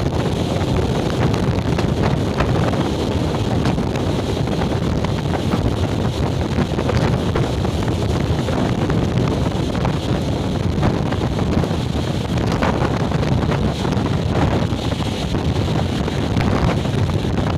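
Passenger train carriage running at speed: a steady low rumble of wheels on the rails, with wind rushing hard over the microphone.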